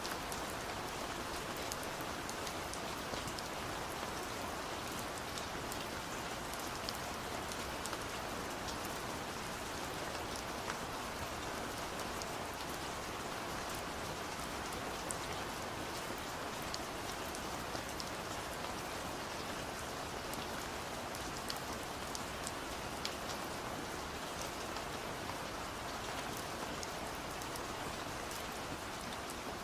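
Steady rain falling: a constant even hiss, with many separate drops ticking on a surface.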